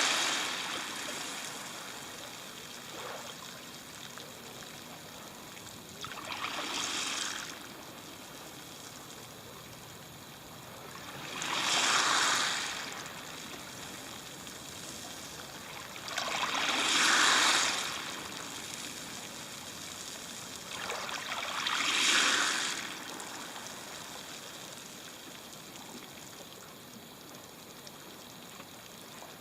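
Small sea waves breaking and washing up the shore about every five seconds, five washes in all, over a steady hiss of surf between them.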